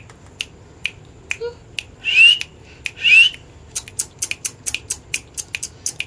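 Indian ringneck parrot giving two short rising chirps about two and three seconds in, among a run of sharp clicks that come faster in the second half.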